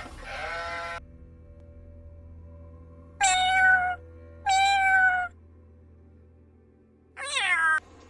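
A domestic tabby cat meowing twice, each meow under a second long and about half a second apart. Before it, the end of a sheep's bleat falls away in the first second; near the end comes a short, higher call from another animal.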